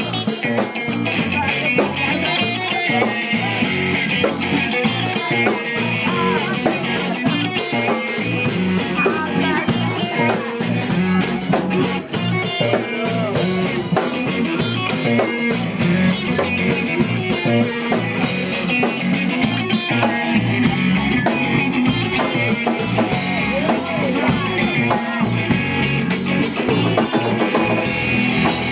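A live rock band playing: drum kit and electric guitar, loud and steady throughout.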